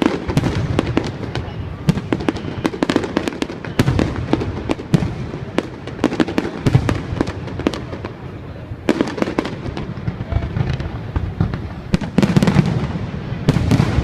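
Fireworks going off: a dense run of rapid crackles and pops, with heavier clusters of bangs about nine seconds in and again near the end.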